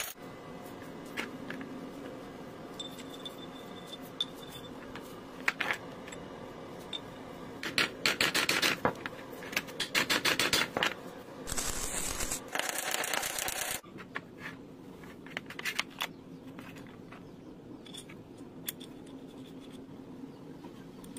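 Steel workpieces handled and scraped by hand: scattered clicks and light knocks, with a few seconds of rapid scraping near the middle followed by a rougher stretch of rubbing noise.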